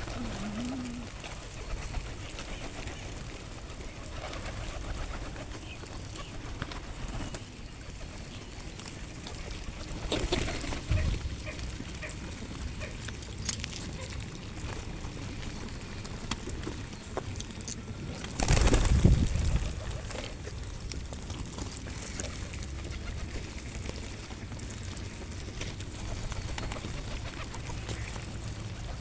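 Pigeons cooing faintly over a steady outdoor hiss, broken by two louder rushing surges, one about ten seconds in and one near the twenty-second mark.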